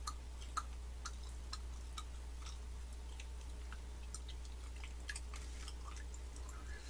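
Red velvet macarons being chewed close to the microphone: soft, moist mouth clicks and smacks, a few a second. A steady low hum runs underneath.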